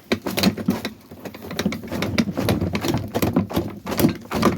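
Wood mulch being dumped and spread: a continuous irregular rustling, crackling and scraping of chips, with knocks mixed in.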